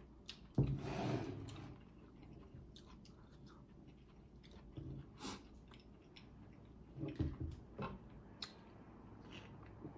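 Close-miked mouth sounds of chewing food, with scattered wet clicks and smacks. Near the end come sips of water through a water bottle's straw.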